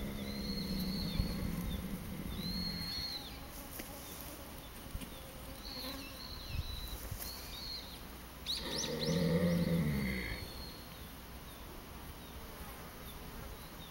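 A sleeping horse snoring. A long, steady, buzzing snore fades out about three seconds in, and a second, louder snore comes a little past halfway through. Small birds chirp high and faint throughout.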